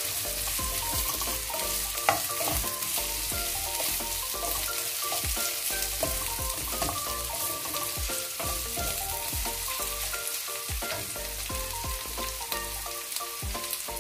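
Sliced onions and green chillies sizzling in hot oil in a pan, stirred with a wooden spatula that scrapes and knocks against the pan at irregular intervals.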